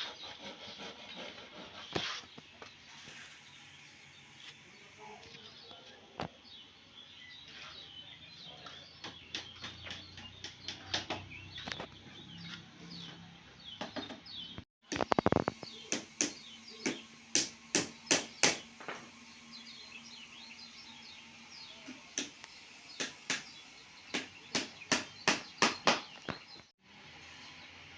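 Runs of sharp knocks, about two to three a second in bursts of several, loudest a little after the middle.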